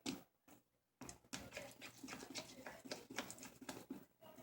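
Faint, quick clicking and scraping as a thick shampoo-and-salt slime mixture is stirred in its container, starting about a second in.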